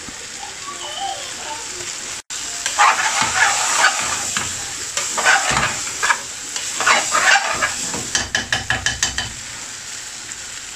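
Chicken curry sizzling in an aluminium frying pan while a metal spoon stirs and scrapes it in several long strokes, with a quick run of clicks near the end.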